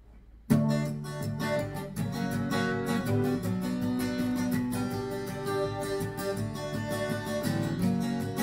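Acoustic guitar strummed in a steady rhythm, starting about half a second in: the instrumental intro to a song, before the vocals come in.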